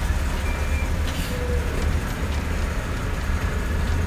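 Steady low rumble of the car's engine and surrounding truck traffic, heard inside the car's cabin in slow, congested traffic. Two brief faint tones sound in the first second and a half.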